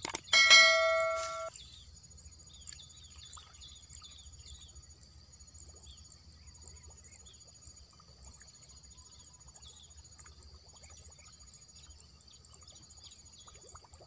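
A click and a ringing bell-like chime from a subscribe-button sound effect in the first second and a half. Then faint outdoor ambience: birds chirping over a steady high insect drone with regular ticks.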